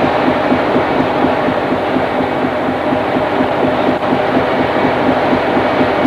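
Loud, steady running of a trawler's engines and deck machinery, with a fast, even flutter and no let-up.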